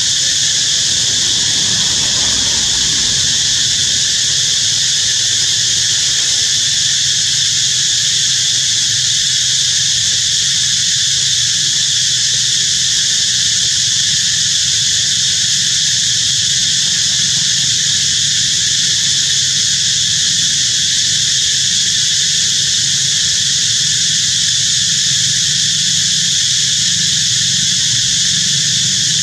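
Loud, steady insect chorus: an even high-pitched buzz that holds without a break, with a low rumble underneath.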